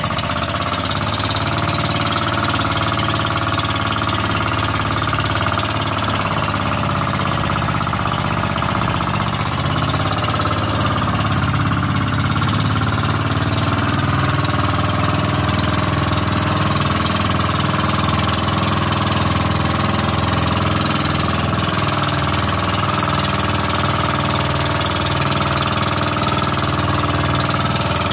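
The engine of a motorized outrigger boat running steadily at a constant speed under way.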